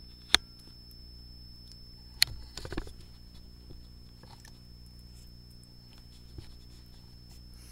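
Handling noise at a workbench: two sharp clicks about two seconds apart and a short rustle, then a small tick, over a steady low electrical hum and a faint high-pitched whine.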